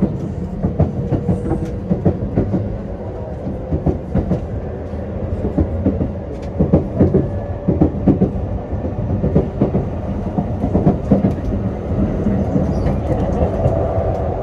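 Running noise heard inside a JR East commuter electric train: a steady rumble from the wheels, with irregular clacks and clunks over the rail joints, and a faint tone that rises slightly near the end.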